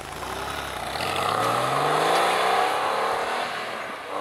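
Porsche 911 Carrera 2S flat-six engine accelerating away from a standstill, its note climbing in pitch. It is loudest about two seconds in, then fades as the car pulls away.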